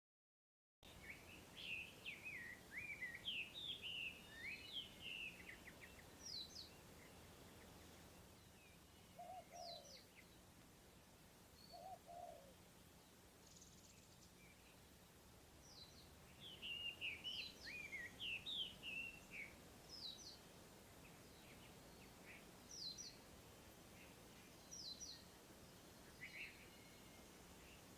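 Faint small birds chirping and twittering in quick bursts of high notes, with two short lower calls about a third of the way through. The sound starts suddenly out of dead silence just under a second in.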